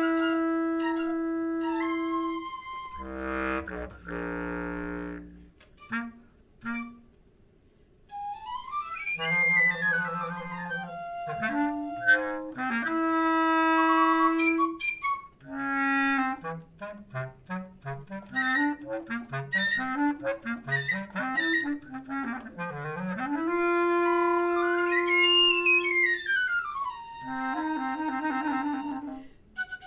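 Flute and clarinet duo playing contemporary chamber music: long held notes, sweeping glides up and down in pitch about nine seconds in and again near the end, and a stretch of quick, short detached notes in the middle.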